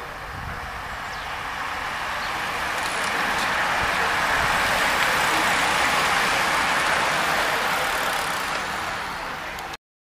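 A pack of road-racing bicycles passing close by: a rush of many tyres on asphalt that swells as the riders come near and fades as they go by, then cuts off suddenly near the end.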